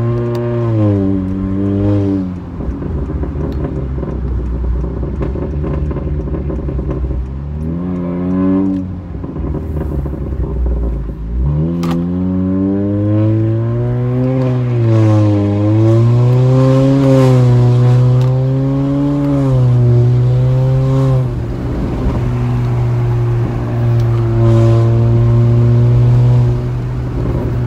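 Honda Accord 1.5-litre turbocharged four-cylinder, heard from inside the cabin through a loud aftermarket exhaust with PRL downpipe and front pipe and the resonator and muffler deleted. It revs up and down as the car accelerates and lets off, dropping to a low drone between pulls, and holds a steady note for the last few seconds.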